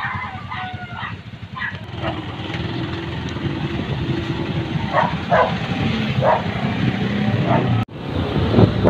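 Motorcycle engines running at idle, with a dog barking several short times over them. After a brief break near the end, a motorcycle is riding along.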